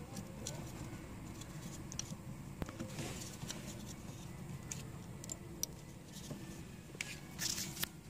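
Small scattered clicks and rattles of a car's blower-motor resistor and its plastic wiring plug being handled, over a low steady hum. The clicks come more often near the end.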